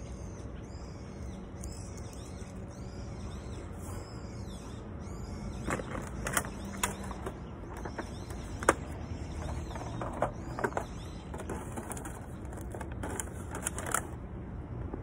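Plastic snack bag being handled, crinkling and crackling in irregular bursts from about six seconds in, over a steady low background rumble.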